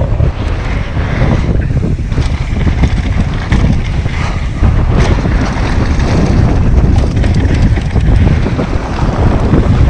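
Heavy wind buffeting the microphone of a mountain biker riding fast down a bike-park trail, with scattered knocks and rattles from the bike going over the ground.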